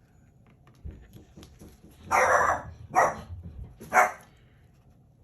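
Pet dog barking three times, the first bark longer than the other two: alert barking because someone is at the door.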